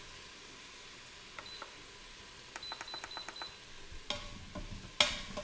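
Instant Pot control panel beeping as its buttons are pressed to set the sauté time: a couple of clicks, then a rapid run of short high beeps lasting about a second. Near the end a wooden spoon knocks against the pot as apples are stirred in the hot butter, faintly sizzling underneath.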